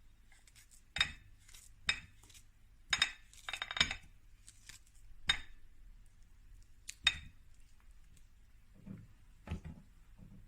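Kitchen utensil clinking against a dish while food is prepared: about eight sharp clinks at uneven intervals, with a couple of softer knocks near the end.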